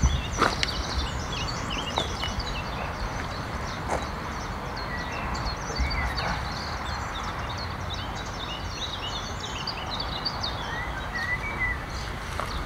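Small birds chirping and singing continuously in quick, short notes over a steady low rumble, with a few light knocks in the first seconds.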